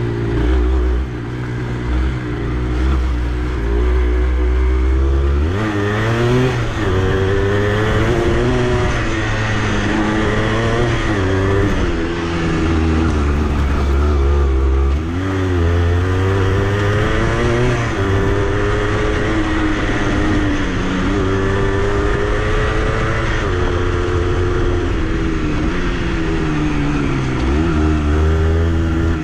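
Honda CRM80's single-cylinder two-stroke engine being ridden, its pitch rising and falling over and over as the throttle opens and closes and the gears change.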